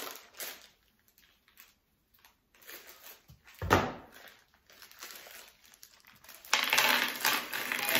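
Rustling and crinkling of packaging being handled, with one thump just before four seconds in; the crinkling grows louder and denser from about six and a half seconds.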